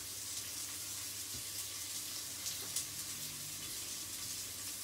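Sliced red onions frying in coconut oil in a pot, a steady sizzling hiss, with a couple of faint knife taps on a wooden chopping board around the middle.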